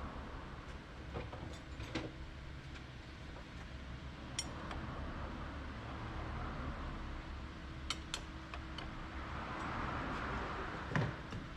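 A few light metallic clinks and taps, scattered and irregular, over a steady low hum; the sharpest comes near the end.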